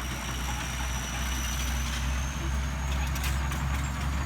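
Bulldozer's diesel engine running steadily, with a thin high whine that rises slightly and a run of clicks and clanks starting near the end.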